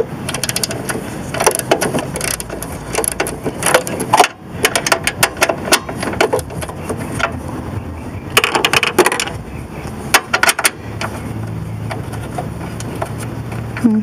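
A 7 mm ratchet wrench clicking in quick bursts as a bolt on the negative battery cable is backed out, with small metal clinks of the tool. A low steady hum comes in near the end.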